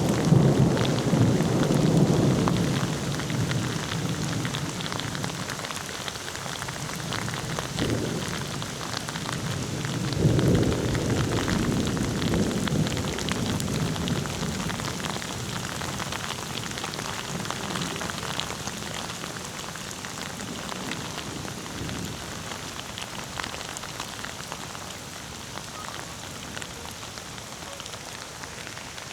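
Steady rain falling during a thunderstorm. A low rolling thunder rumble fades over the first few seconds, and a second rumble swells about ten seconds in and dies away, leaving the rain slowly growing quieter.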